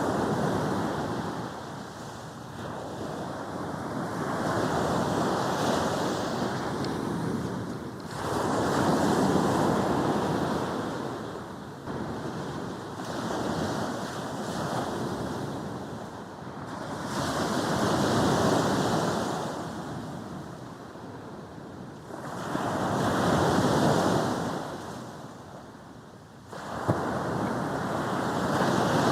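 Sea waves breaking and washing up a beach, each wave surging in and drawing back every few seconds.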